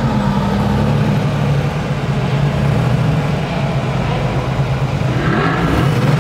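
Car engines running at low speed in slow traffic, a steady low drone heard from inside a car, with a short rising rev about five seconds in.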